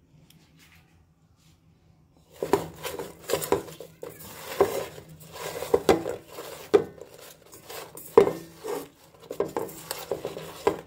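Food being stirred in a metal rice cooker pot: irregular clinks, knocks and scraping against the pot, starting about two seconds in.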